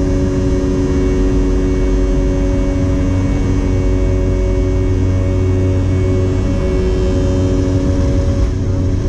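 Boeing 717-200's Rolls-Royce BR715 turbofans heard inside the cabin: a steady drone with a deep rumble and several steady humming tones.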